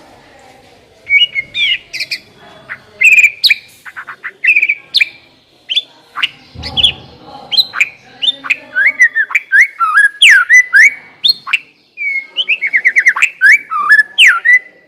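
White-rumped shama (murai batu) singing a long, varied song of loud whistled phrases, pitch sweeps and quick runs of repeated notes, starting about a second in. There is a soft low thud about halfway through.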